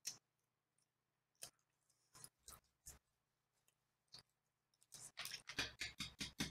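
Faint scattered clicks and smacks, then a quick run of them in the last second and a half: mouth sounds of someone sucking and smacking on a very sour hard candy.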